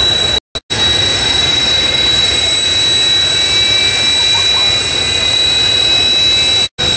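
Kawasaki T-4 jet trainer's twin turbofan engines running on the ground: a steady rush with a piercing high whine. The sound cuts out to silence briefly about half a second in and again near the end.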